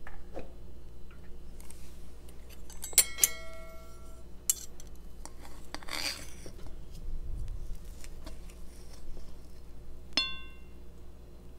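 Stainless fork and knife clinking and scraping against a ceramic dinner plate while cutting into soft pancakes: a few ringing clinks about three seconds in, a short scrape around the middle, and one more ringing clink near the end.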